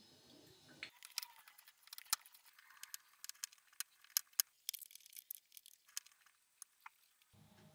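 A metal potato masher mashing firm, underripe avocado in a glass bowl: a busy, irregular run of sharp clicks and taps as the masher's perforated plate knocks against the glass. In the first second, olive oil is poured from a bottle into the bowl.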